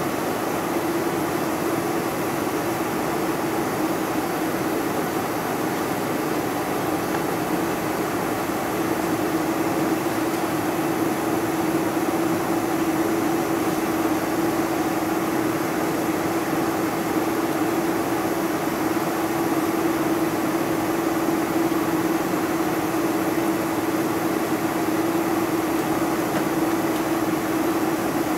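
Boeing 747-400's General Electric CF6-80C2 turbofan engines at low power, heard from inside the cabin while taxiing: a steady hum with one constant droning tone, growing slightly louder about ten seconds in.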